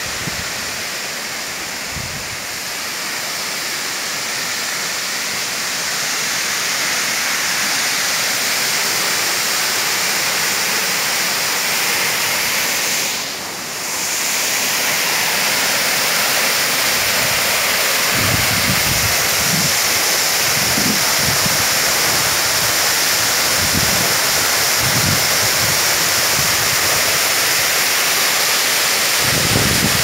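Waterfall's water pouring down onto rock, a steady dense hiss that grows louder over the first several seconds. From about 18 seconds in, low gusts of wind buffet the microphone.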